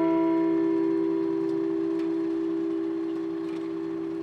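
Large bronze bell ringing on after a single toll, slowly fading: the higher tones die away within the first second or two, leaving a steady low hum.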